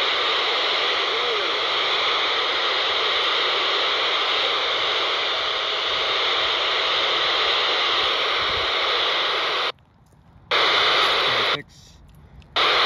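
Steady FM receiver static hiss from a handheld scanner's speaker, tuned to an empty channel in the 11-metre CB band. Near the end the hiss cuts out abruptly twice and comes back.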